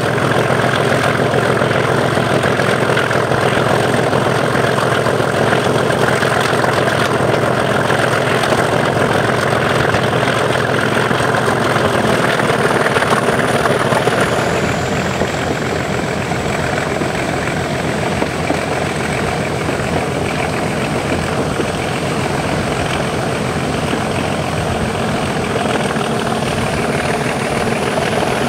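Class 37 diesel locomotive's English Electric 12CSVT V12 engine working hard under power ("thrash"), heard from the cab droplight with rushing air on the microphone. A high turbocharger whistle runs over the engine note, dipping in pitch about halfway as the engine eases slightly, then slowly rising again near the end.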